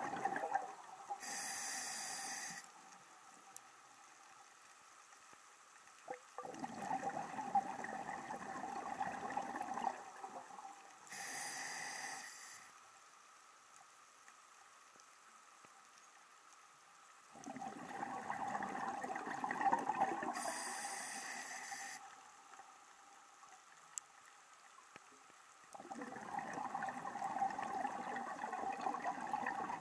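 Scuba diver breathing underwater through a regulator: a short hiss on each inhale, then a longer rush of exhaled bubbles, with quiet gaps between breaths about every nine seconds.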